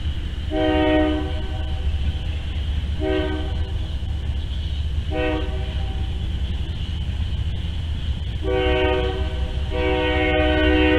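Whistle of Nickel Plate Road No. 765, a 2-8-4 Berkshire steam locomotive, blown in five blasts: a long one, two short, then two long, the last the longest. A steady low rumble runs underneath.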